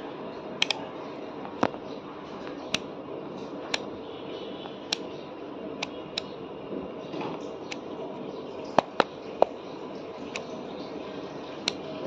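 Sharp single clicks at irregular intervals, roughly one a second and a few in quick pairs, over a steady background hum.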